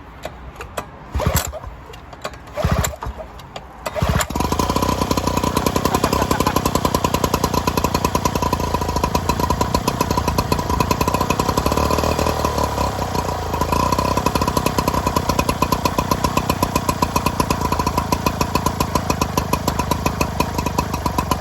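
Small Aspera two-stroke engine being cold-started on choke: a few short knocks, then it fires on the pull about four seconds in and runs steadily with a fast, even beat.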